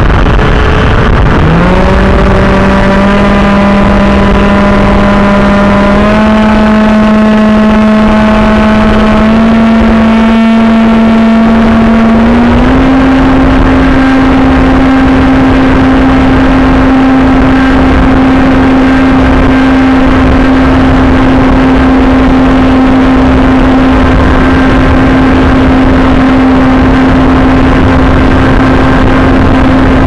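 AXN Floater Jet RC plane's electric motor and propeller, heard from the onboard camera in flight: a whine that glides up in pitch about a second and a half in as the throttle opens, steps higher three times, then holds steady. Loud wind rush on the microphone throughout.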